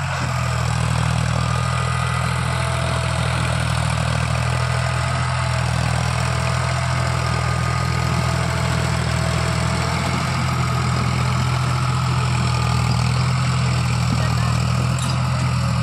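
John Deere 5310 tractor's diesel engine running steadily under heavy load while hauling a trolley piled with sugarcane.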